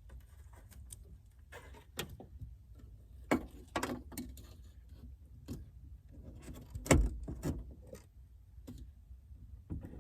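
Hands working on a car taillight's mounting: scattered light clicks and small metallic clinks, with one louder knock about seven seconds in.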